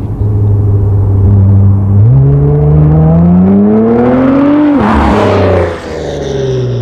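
2017 Acura NSX's twin-turbo V6 through an Armytrix titanium exhaust, accelerating hard and passing by loudly. A steady drone for about two seconds, then a pitch that rises for nearly three seconds and drops sharply as the car goes past, fading at lower pitch.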